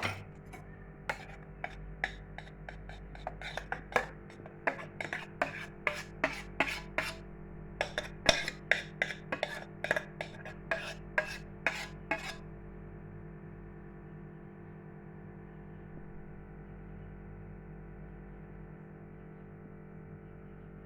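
A utensil scraping and knocking against a pot as thick cooked cream is emptied out onto a cake: many short, sharp scrapes, irregular and roughly two a second, that stop about twelve seconds in. A soft, steady music bed runs underneath.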